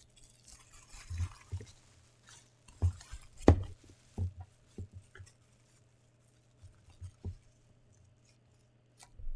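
Scattered knocks and light rustling from handling a figure and its packaging, with the loudest knock about three and a half seconds in.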